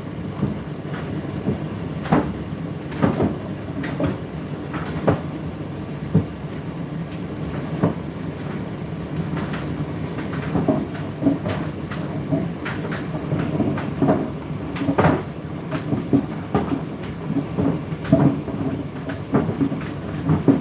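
Indesit IDC8T3 condenser tumble dryer running: a steady motor and drum hum with irregular knocks as the load tumbles and drops inside the drum, roughly one to two a second.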